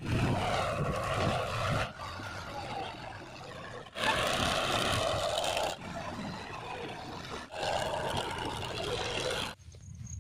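Tractor diesel engines labouring under load as they haul trolleys heaped with mud, in short clips that change abruptly about every two seconds. The sound drops much quieter near the end.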